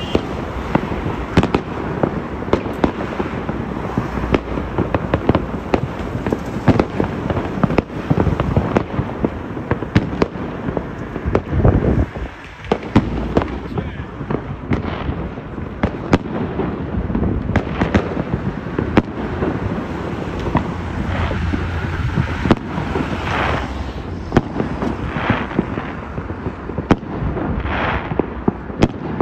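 Fireworks going off: many sharp bangs and crackles from bursting shells in quick succession, with a short lull about twelve seconds in.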